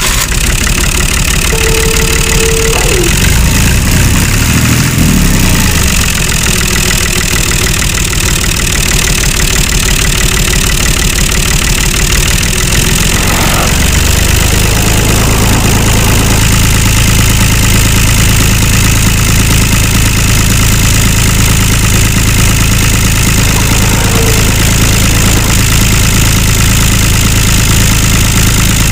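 Engine running steadily with a fast, even firing rhythm. About halfway through it settles into a steadier, deeper hum.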